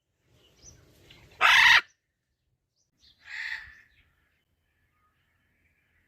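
Parrot calling: one loud squawk about one and a half seconds in, then a softer, shorter call about a second and a half later.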